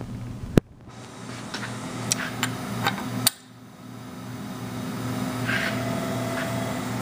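Light metallic clicks and clinks as a steel hydraulic-motor flange and its small screws are handled and set onto the motor, the sharpest click about half a second in and a run of lighter ones after it. A steady low hum with a slow pulse runs underneath.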